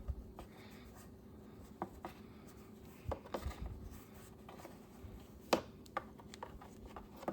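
Faint handling noises: light rubbing and scattered small knocks and clicks, with one sharper click about five and a half seconds in.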